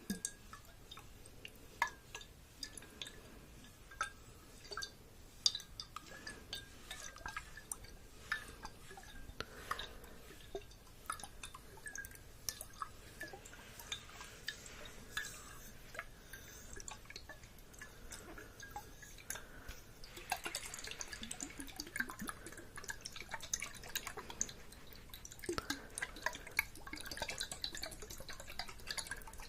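Irregular small clicks and drip-like taps, close and soft. A faint steady tone sits under the first two-thirds, and a soft hiss joins about twenty seconds in.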